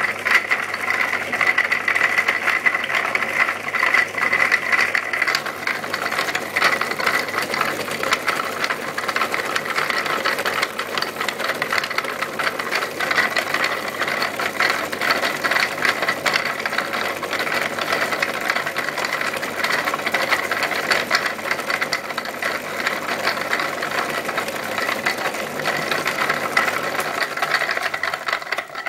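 Ball mill rolling a plastic jar loaded with twenty cardboard tubes standing in for grinding rods. The tubes tumble against each other and the jar wall in a steady, dense clatter over a faint steady hum, which dies away near the end as the mill stops.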